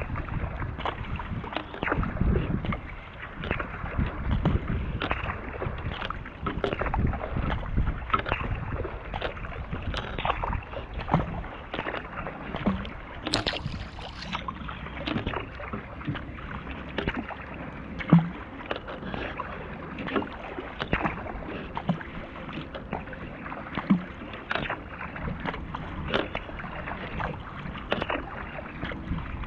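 Kayak being paddled: repeated paddle strokes splashing and dripping, with water running along the hull. There are two louder knocks in the second half.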